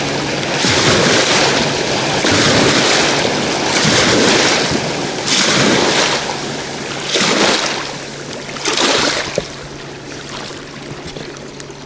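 Boat wake washing onto a riverbank in repeated surges, one about every second and a half, dying down near the end.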